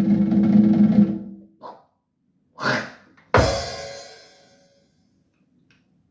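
Cartoon-style drum sound effect: a drum roll stops about a second in, followed by a short swish and a single loud cymbal crash that rings away over about a second.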